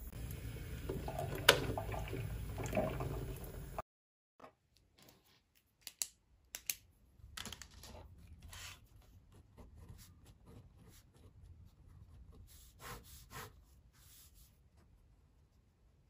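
Electric water boiler heating, a steady low rumble of water with a sharp click about one and a half seconds in and a softer one near three seconds. It cuts off abruptly at about four seconds. Faint scattered clicks and rustles of paper and small objects being handled on a desk follow.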